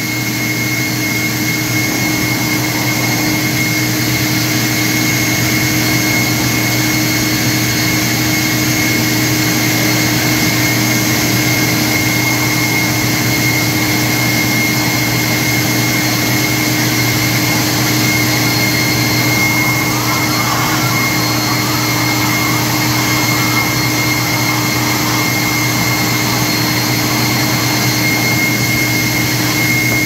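Cordless electric leaf blower running steadily, a strong rush of air with a constant whine, blowing dust out of a vacuum cleaner's dust cup and filter. The air noise gets rougher for several seconds past the middle as the stream plays over the cup.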